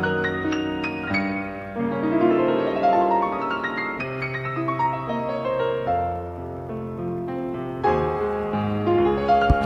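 Background piano music, with a steady run of melodic notes.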